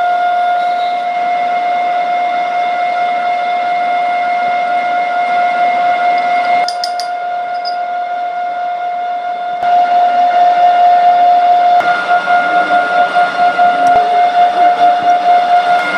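Gear-cutting machine running with a steady, high-pitched whine from its drive. There are a few sharp metallic clinks about seven seconds in, and near the end the whine pulses quickly.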